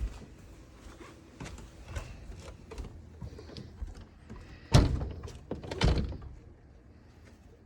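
Scattered light knocks, then two heavy thumps about five and six seconds in.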